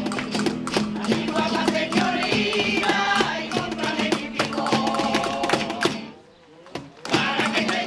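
Amateur choir of older voices singing to acoustic guitar, with hand claps keeping the beat. The music drops out about six seconds in and comes back a second later.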